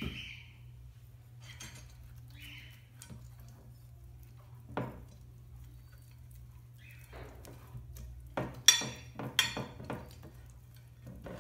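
A glass baking dish being greased with olive oil by hand: faint rubbing and small clicks against the glass, then a cluster of sharp knocks and clinks about two-thirds of the way in.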